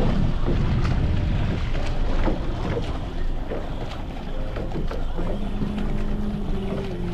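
Wind buffeting the microphone on an escort boat under way at sea, over the boat's engine and the slap and splash of water. A faint steady low tone comes in about five seconds in.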